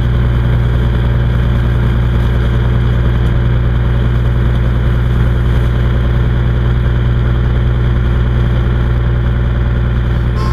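A beam trawler's engine running at a constant speed with a low, even drone as the boat tows its trawl net.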